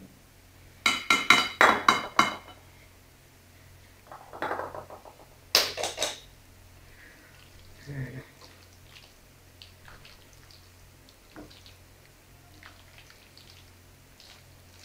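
A metal spoon clinking against a ceramic bowl in three quick clusters of ringing strikes in the first half, then faint soft scraping as a silicone spatula works a thick mixture in the bowl.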